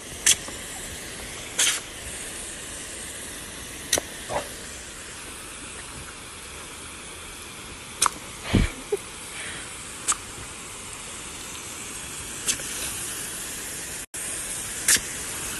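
Water jetting from a garden hose spray nozzle with a steady hiss, broken by short sharp clicks every few seconds.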